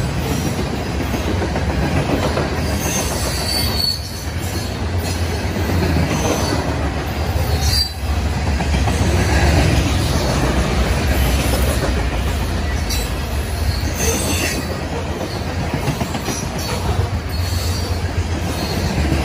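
Covered hopper cars of a freight grain train rolling past, a steady rumble of steel wheels on the rails with brief high-pitched wheel squeals a few times.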